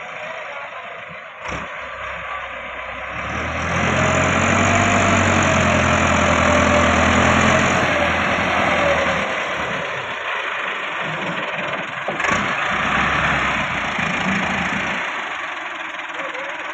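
Massey Ferguson tractor's diesel engine running as it pulls a brick-loaded trolley. It grows louder as the tractor draws close, is loudest from about four to eight seconds in, then settles back. Two short knocks come through, one early and one about twelve seconds in.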